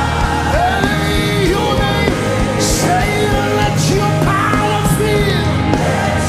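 Live gospel worship music: a singer's voice sliding between notes over a band with a sustained bass, with a few short cymbal-like splashes midway.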